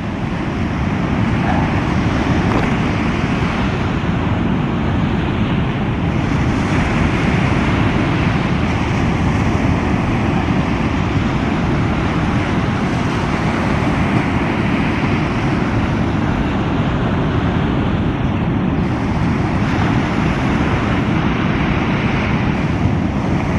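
Steady wash of breaking surf, with wind buffeting the microphone.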